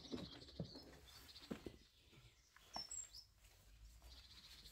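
Near silence, with faint bird chirping: a pulsing twitter near the start and again near the end, and a couple of quick high chirps about two and a half seconds in. A few soft knocks sound through it.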